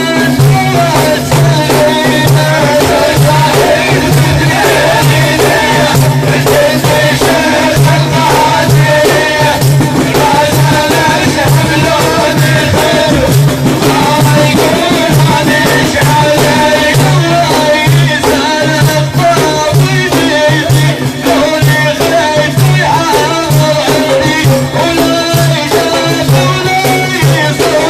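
Sufi dhikr: a group of men chanting in a steady repeated rhythm, with a lead voice singing above them, over fast-beaten frame drums with jingling rattles.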